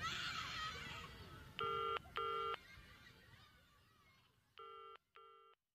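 An electronic telephone ring in the British double-ring pattern: two short rings, a pause of about two seconds, then two more, with the second pair quieter as the sound fades out. A wash of noise dies away over the first second or so.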